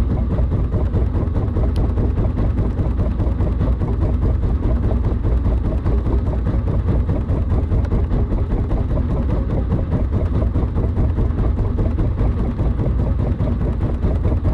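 A fishing boat's engine running steadily, a loud, even low drone with no change in speed.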